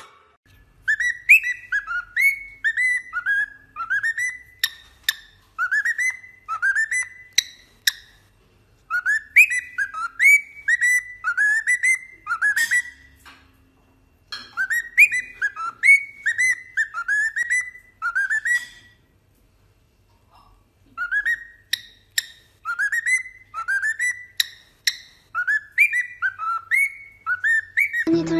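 Cockatiel whistling a repeated tune of short, clear notes that swoop up and down, in runs of several seconds with short pauses between them.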